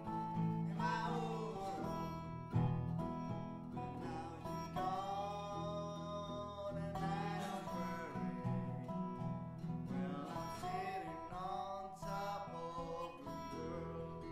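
Bluegrass-blues music on acoustic guitar: plucked, picked notes with held tones that slide and bend in pitch.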